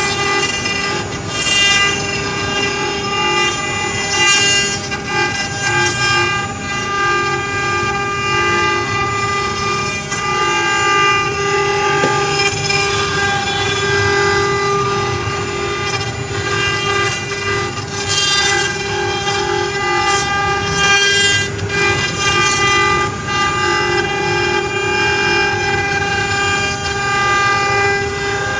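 CNC wood-carving router running, its spindle giving a steady, many-toned whine, with recurring rough rasps of the bit cutting wood.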